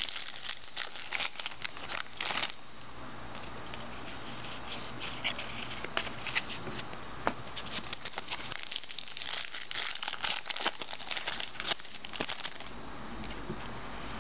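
Trading card pack wrappers crinkling and rustling, with quick clicks of cards being handled, in two busy spells with a quieter pause between.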